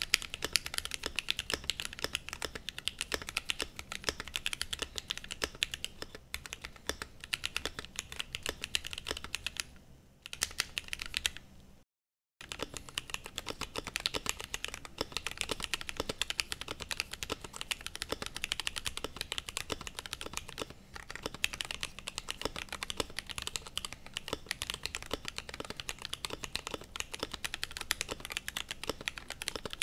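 Fast, continuous typing on a Glorious GMMK Pro mechanical keyboard with lubed and filmed Gateron Black Ink V2 linear switches and PBT Cherry-profile keycaps: a dense stream of keystroke clacks. The typing pauses briefly and drops to dead silence for about half a second about twelve seconds in.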